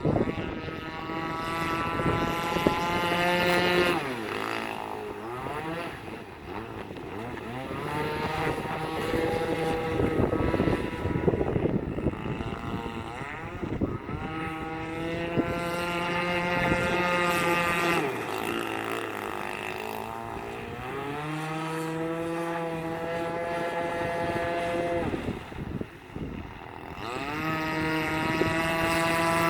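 Gas RC boat's 26cc two-stroke engine running at speed, its pitch climbing and holding high, then sagging as the throttle eases, five runs in all.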